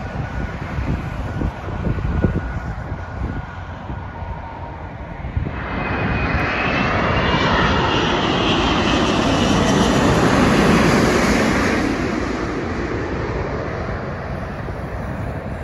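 Emirates Airbus A380 on final approach passing low overhead: the jet roar of its four engines, with a whine in it, builds from about five seconds in, is loudest around ten seconds, then fades. Before the pass there is a fainter, more distant rumble.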